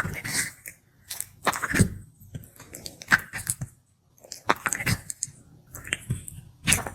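Sulcata tortoise biting and chewing food, a series of crisp crunching bites about once a second with short pauses between them.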